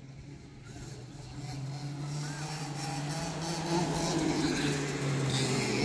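Go-kart engines running on the track, a steady engine drone that grows louder over the first few seconds as karts come closer.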